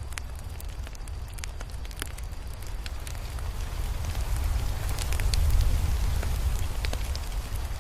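Crackling fire: scattered sharp pops and crackles over a low rumble that swells toward the middle and eases off near the end.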